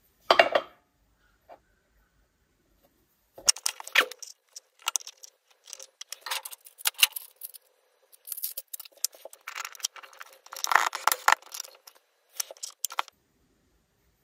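Steel parts clinking and rattling as a long 19 mm socket and its screw are handled: one sharp clatter, then a run of irregular metallic clinks in bursts.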